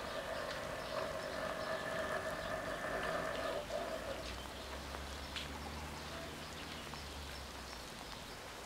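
Electric warning bells of a WSSB level crossing ringing steadily while the barriers rise, then cutting off abruptly about three and a half seconds in. A low hum follows, with a faint patter of rain.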